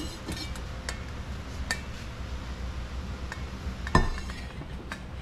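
A few separate clinks and knocks of a stainless steel bowl and wire mesh strainer being handled and set down, the loudest about four seconds in.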